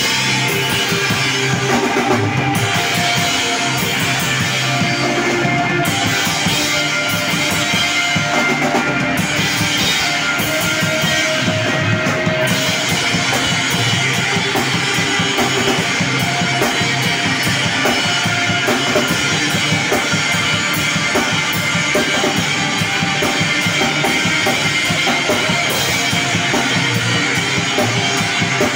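Screamo band playing live: electric guitars over a drum kit, loud and dense, the cymbals busier from about halfway through.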